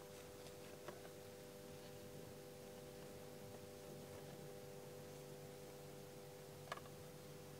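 Near silence: a faint steady hum, with two small clicks, one about a second in and one near the end.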